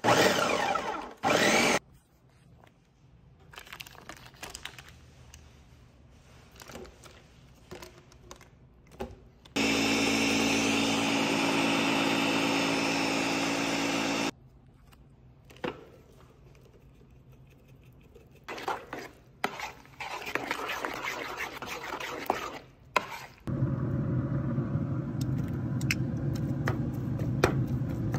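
Countertop blender pulsed in a few short bursts, then running steadily for about five seconds as it purées chopped vegetables, with quieter clatter between. Another steady loud noise runs near the end.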